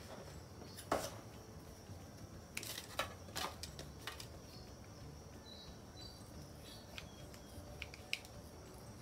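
Knocks and taps of a foam wing piece, wooden popsicle sticks and a hot glue gun being handled on a cutting mat: a sharp knock about a second in, a cluster of knocks around three seconds, then a few light ticks.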